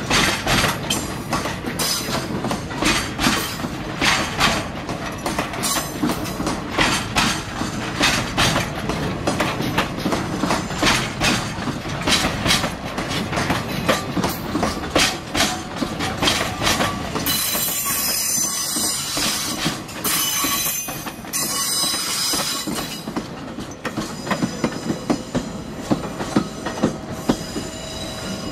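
Loaded container flat wagons of a freight train rolling past, their wheels clacking steadily over rail joints. About two-thirds of the way through a high-pitched wheel squeal comes in for a few seconds, and near the end the clacking thins out as the last wagons go by.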